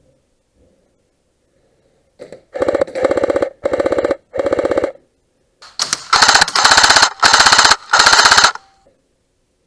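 Airsoft electric gun (CYMA AKM AEG) firing full-auto bursts with a rapid mechanical rattle: three bursts about two and a half seconds in, then a pause and four louder bursts about six seconds in.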